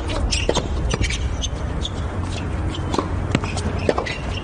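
Tennis rally on a hard court: sharp racket-on-ball hits about a second apart, with shoes scuffing on the court between shots.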